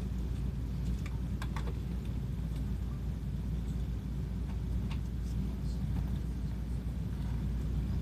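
Steady low rumble and hum inside a Shinkansen passenger car, the train barely moving, with a few faint clicks.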